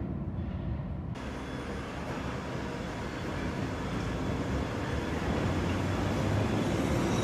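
London Underground 1973 Stock tube train moving along the platform, a steady rumble that grows gradually louder.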